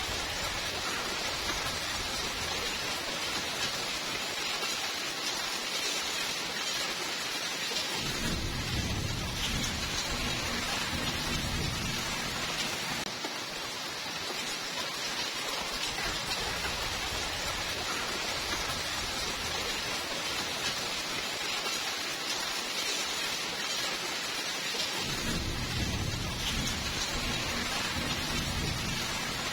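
Steady rain hiss, joined by a low rolling rumble of thunder about eight seconds in that lasts several seconds, and again near the end.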